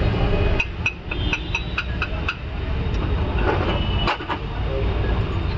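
Street traffic rumbling steadily. A quick run of about eight sharp clicks or taps comes between about half a second and two and a half seconds in, and there is a single knock near the end.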